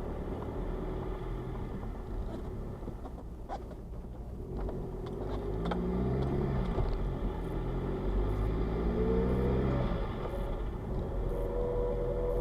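BMW 116d 2.0 diesel car under way, a steady low rumble with a pitched note that rises and falls with engine speed about halfway through, then holds steady near the end. It is the unexplained noise the owner hears when the car is cold, which garages think could be a loose piece of metal in the exhaust left after the DPF was removed.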